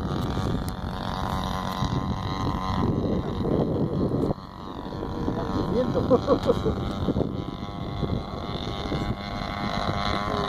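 Radio-controlled model airplane's motor droning steadily as it flies overhead, with wind buffeting the microphone.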